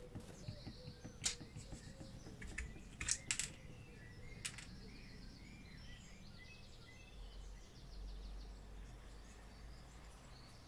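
Birds chirping and trilling in the background, with a few light clicks and taps in the first half from hands working on a small electric motor's housing and coils.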